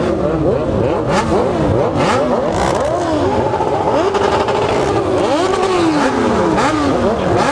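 Several motorcycle engines revving hard at once, their pitch sweeping up and falling back again and again in overlapping waves.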